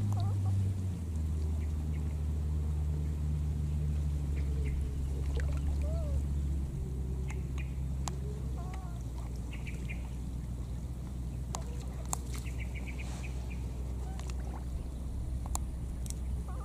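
A steady low motor hum that shifts pitch about a second in and again partway through, with a few faint short squeaky calls and scattered light clicks over it.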